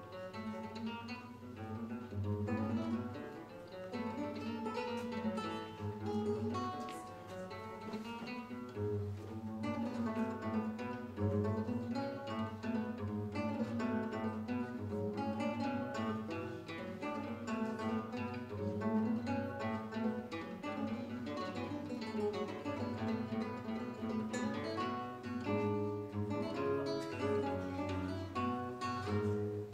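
Two classical guitars playing a duet: a fast run of plucked melody notes over a pulsing bass line.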